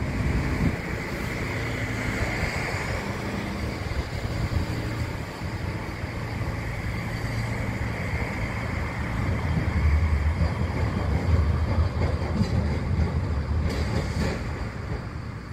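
Kagoshima City tram running on its street track among road traffic. A low rumble swells about ten seconds in, and a few short clicks come near the end.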